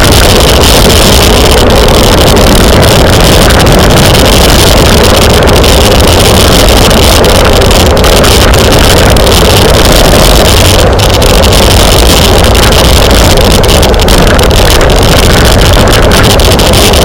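Loud, steady rush of wind over the microphone of a camera on a moving bicycle at race speed.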